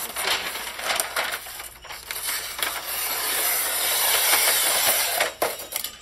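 Gift-wrapping paper rustling and crinkling loudly as it is handled, unrolled and cut with scissors, with sharp crackles. The sound is heaviest from about two seconds in until just past five.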